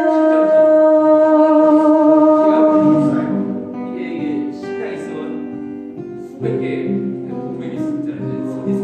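A singer holds one long note over strummed acoustic guitar; about three seconds in the voice ends and the acoustic guitar plays on alone.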